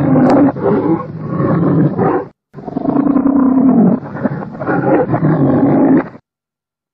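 Recorded lion roar of the early MGM lion logo: a series of loud roars, breaking off briefly about two and a half seconds in, then more roars that stop about six seconds in.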